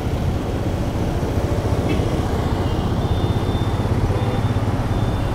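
Riding a motorcycle in slow, dense city traffic: a steady low rumble of the bike and the vehicles around it. Faint high tones come and go in the second half.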